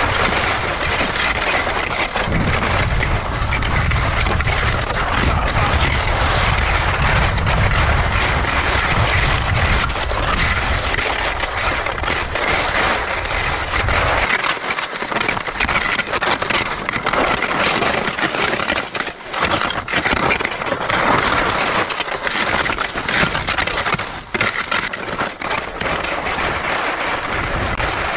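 Crunching, crackling footsteps on rough ground, with wind buffeting the microphone as a heavy rumble that stops about halfway through.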